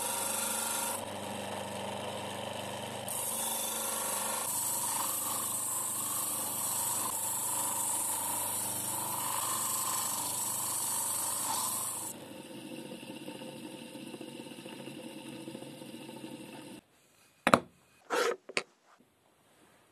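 Small electric grinder motor with an abrasive wheel running steadily while a steel chisel blade is pressed against the wheel, giving a hissing grind. About 12 s in the grinding stops and only the motor carries on until it cuts off. Near the end come two short knocks, like the steel chisel being set down on the wooden bench.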